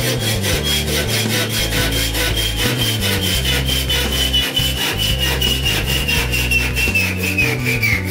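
Hacksaw cutting through an M6 threaded rod: quick, even back-and-forth strokes, with a high ringing tone that slowly falls in pitch as the cut goes on.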